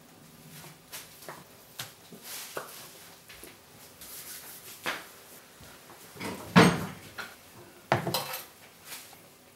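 Metal utensils clinking and scraping against a steel saucepan and a china plate as food is served and cutlery is picked up, with two louder clatters about six and a half and eight seconds in.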